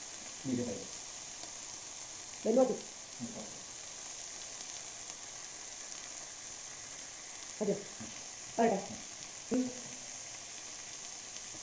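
Herb-paste-coated chicken legs sizzling steadily on a thick, dry flat tawa, fried with no oil. A few brief voice-like sounds cut in over the sizzle, the loudest about two and a half seconds in.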